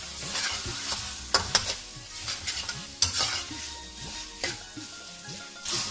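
Boneless chicken in cream sizzling in a karahi as a spatula stirs and scrapes it around the pan, with several sharp scrapes and knocks against the pan, the loudest about a second and a half and three seconds in.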